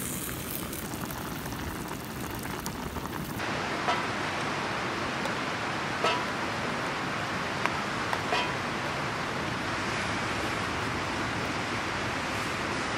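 Wood campfire burning with a steady hiss, broken by a few light clicks and clinks, some with a short metallic ring, as food is served from a metal pot into a bowl.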